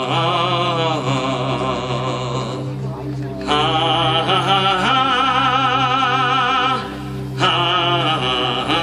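A solo singing voice in long held notes with vibrato, over a steady low accompaniment. It comes in phrases, with brief breaks about three and seven seconds in.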